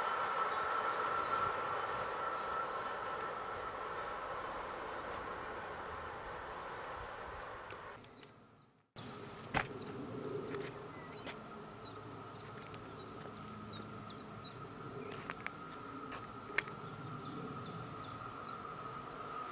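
Container freight train running away along the track, its rumble fading over about eight seconds. The sound then cuts out briefly. After that, a pair of electric locomotives in double traction approaches, its low rumble slowly growing, under a steady high hum and short high chirps.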